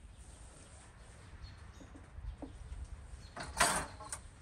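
Raw lamb pieces handled on a long metal skewer over a steel plate, with one short loud metal-on-metal scrape about three and a half seconds in and a faint clink just after, over a steady low rumble.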